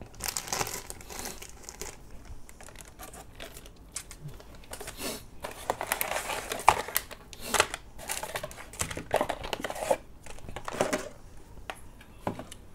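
Cardboard blind-box packaging being opened and handled: crinkling and rustling in irregular bursts, with a few sharp clicks.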